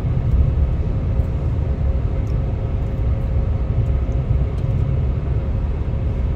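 Road noise inside a moving car's cabin: a steady low rumble, with a faint steady hum above it.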